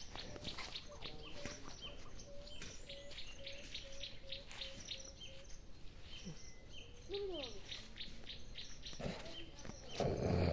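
Wild birds calling outdoors: many short high chirps repeat throughout. From about a second in, a run of short, low, evenly spaced notes lasts several seconds, and a single falling call comes about seven seconds in. There is a brief louder burst of noise near the end.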